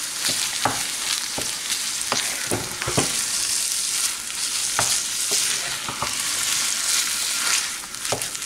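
Raw minced chicken sizzling in hot oil in a frying pan while a wooden spoon stirs and breaks it up, with irregular knocks and scrapes of the spoon against the pan.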